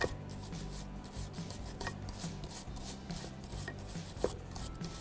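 Steel wire brush scrubbing back and forth on a rusty rear brake caliper bracket in quick scratchy strokes, about three a second. It is scouring surface rust off the pad abutments so the pads have a clean sliding surface.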